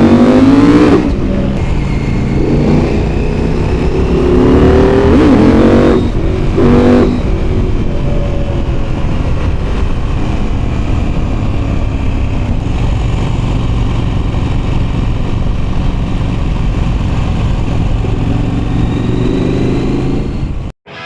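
KTM 890 SMT's 889 cc parallel-twin engine accelerating hard: the revs climb and break off at an upshift three times in the first seven seconds. It then runs at a steady speed until the sound cuts off abruptly near the end.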